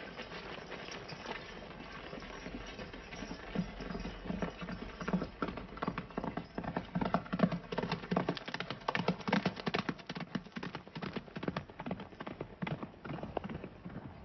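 Horses' hoofbeats in a rapid, irregular clatter that grows louder a few seconds in, is thickest around the middle and then thins out.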